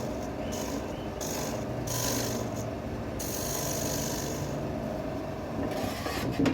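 Wood lathe running with a steady hum while something rubs against the spinning wood in several hissing passes, with a short knock near the end.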